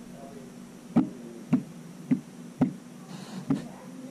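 Five sharp taps, the first four about half a second apart: the tip of a fine-nozzled gun-oil bottle touching down on a 1911 pistol's steel slide as dabs of oil are put on the slide rails.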